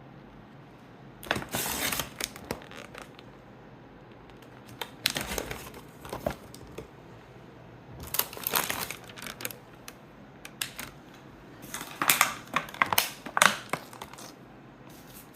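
Plastic grocery packaging crinkling and rustling as items are handled, in four bouts of a second or so each.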